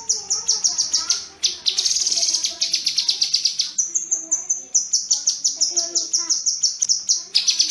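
Kinoi songbird singing fast trains of sharp, high chirps, about ten a second, in runs of a second or two broken by short pauses. Fainter, lower wavering calls sound beneath.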